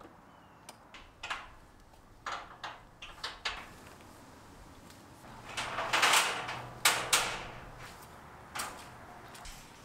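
Knocks, scrapes and rattles of a dirt bike being wheeled onto and positioned on a steel mesh trailer deck while its tie-down straps are handled. There are scattered knocks early on, then a louder scraping rattle in the middle with a couple of sharp clacks.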